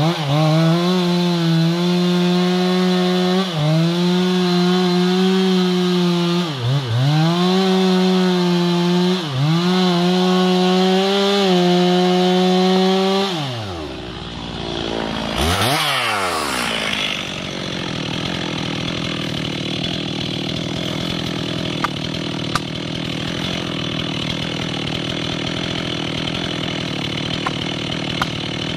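Stihl MS 362 two-stroke chainsaw running at full throttle while cutting wood, its engine note sagging briefly several times under load and then picking back up. About thirteen seconds in the throttle is let off, a short noisy burst follows, and the saw runs on more quietly and steadily.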